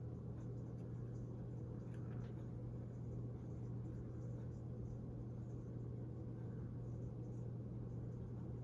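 A steady low hum with a constant low rumbling noise under it, and a few faint ticks about two seconds in.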